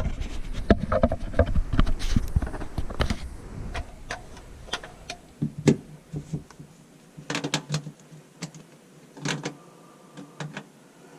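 Clatter of drain fittings being handled and fitted: a dense run of knocks and clicks for the first few seconds, then scattered clicks and taps.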